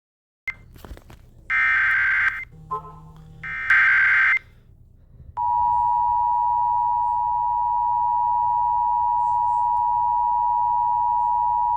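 Emergency Alert System signal announcing a fire warning: two short bursts of warbling digital data from the SAME header, then, about five seconds in, the two-tone attention signal starting and holding steady.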